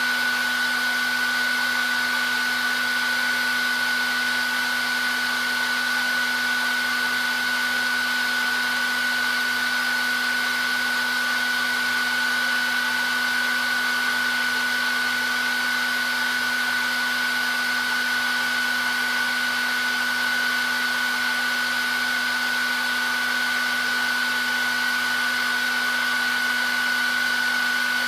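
Hair dryer running continuously: a steady airflow rush with a constant high motor whine and a low hum, with no change in speed.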